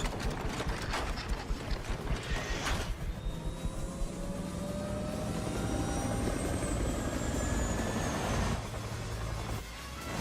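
Film or demo soundtrack effects played through a surround-sound speaker system: a low engine-like rumble with slow gliding whines, like an aircraft or vehicle passing. It pulses rapidly for the first few seconds, then runs steadily and drops away near the end.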